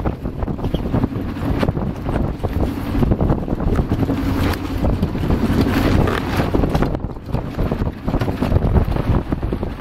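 Wind buffeting the microphone on a sailboat under way: a loud, gusty rumble that swells and dips throughout.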